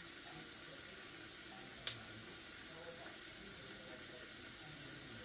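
Kitchen tap water running steadily into a stainless steel sink while raw chicken is rinsed under it, with a single sharp click about two seconds in.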